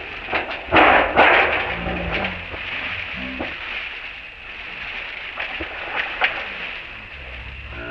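Plastic bag crinkling and rustling as monkeys grab bananas out of it, loudest in two rustles about a second in, with a few sharper crackles later.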